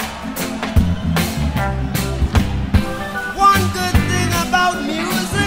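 Rock music with drums, bass and guitar; a singing voice comes in about halfway through.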